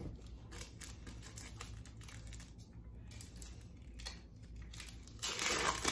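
Paper wrapper of an adhesive bandage being handled and peeled open: small crinkles and ticks, then a longer, louder rustle near the end as the wrapper is pulled apart.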